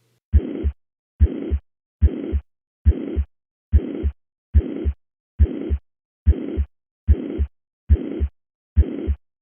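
Heart sounds heard through a stethoscope, about 70 beats a minute. Each beat is a first heart sound followed by a high-pitched murmur of even loudness that fills the gap up to the second heart sound. This is the uniform, holosystolic murmur of mitral regurgitation.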